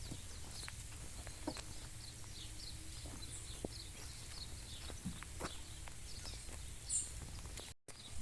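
Outdoor ambience of birds chirping: many short, quick, falling chirps. Under it sit a steady low rumble and scattered light knocks. The sound cuts out briefly near the end.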